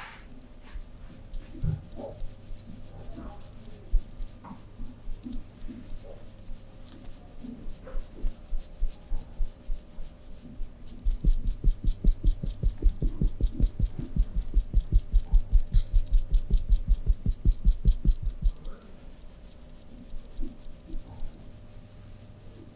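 Hands massaging a person's body: skin rubbing with scattered soft thumps, then for about seven seconds in the middle a fast, even run of pats or taps, about five a second, which is the loudest part.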